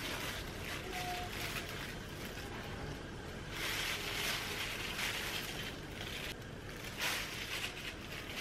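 Plastic glove rustling and breadcrumbs crunching as a batter-coated chicken thigh is pressed and turned in a tray of breadcrumbs. The sound gets louder about four seconds in and again about seven seconds in.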